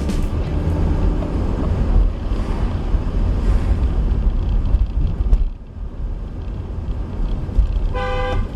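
Car driving, with a steady low road and wind rumble picked up by a dashcam microphone, and a short car horn honk about eight seconds in.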